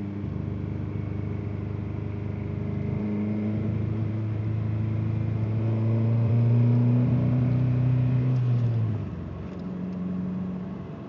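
Ford Escort ZX2's four-cylinder engine pulling under load, its note rising steadily in pitch and getting louder, then easing off suddenly about nine seconds in to a lower, quieter note.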